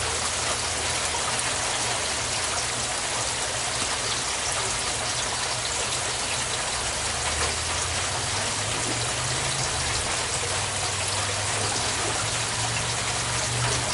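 Steady rush of water circulating through an aquaponics system, over a low constant pump hum, with a few faint clicks of lava rock being dug through.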